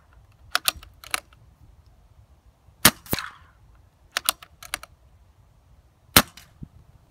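Regulated BSA R10 pre-charged air rifle firing two shots about three seconds apart, each a sharp crack. The first shot is followed about a quarter second later by a fainter crack, the pellet striking the target board. Between shots come quick clusters of small metallic clicks as the action is cycled to load the next pellet.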